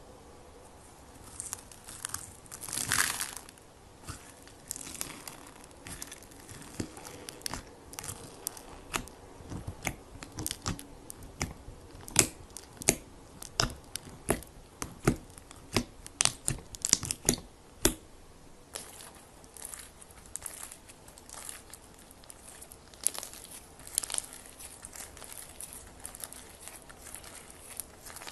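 Close-miked slime being handled in ASMR style: a run of crackles, crinkles and sharp pops, loudest and most frequent in the middle, changing to a steadier, softer crinkling about two-thirds of the way in.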